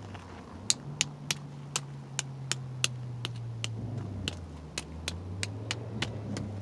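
Footsteps at a steady walking pace, each step a sharp click about three times a second, over a vehicle engine running low whose pitch rises about a second in and drops back around four seconds.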